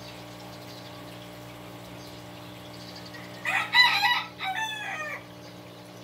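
A rooster crowing once, about three and a half seconds in: a broken call of about two seconds that ends on a falling note, over a steady low hum.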